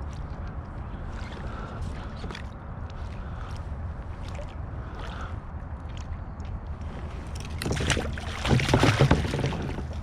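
Water and wind noise around a kayak: a steady low rumble with scattered light clicks and knocks, then a louder stretch of splashing about eight seconds in.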